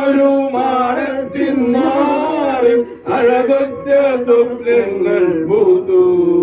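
A group of men singing together into one microphone, in long drawn-out notes with a short break about three seconds in.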